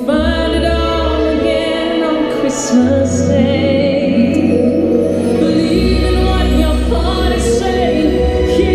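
The castle show's soundtrack playing over the park loudspeakers: loud music with a steady bass and sustained singing by a choir or female voices.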